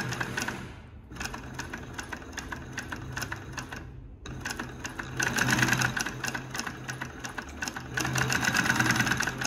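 Consew 289RB-2 post-bed walking-foot industrial sewing machine stitching through eight layers of cotton muslin: a fast, even run of needle-and-feed clicks over a low hum. It stops briefly about a second in and again near four seconds, then runs on, louder in two stretches toward the middle and end.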